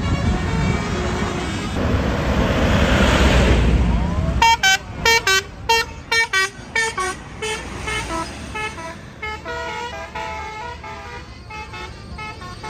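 Tour bus's basuri (telolet) musical horn playing a quick melody of short, separate notes, starting about four seconds in and trailing off into fainter notes near the end. Before it comes a loud rushing hiss.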